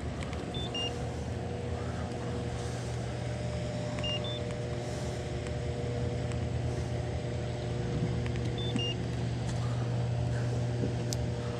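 A steady low mechanical hum with a constant pitch, like a motor running, with a short high three-note chirp repeating about every four seconds.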